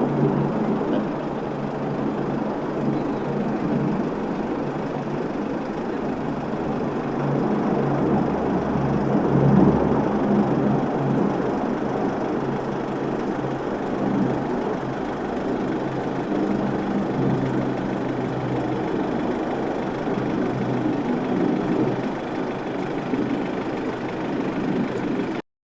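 Four turboprop engines of a Lockheed C-130 Hercules running: a steady low drone with a rough, noisy roar over it that swells and eases a little.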